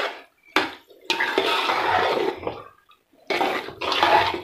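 A spoon stirring and scraping thick carrot-and-semolina halwa around a metal pot, in three scraping strokes: a short one, then two long ones, with brief pauses between.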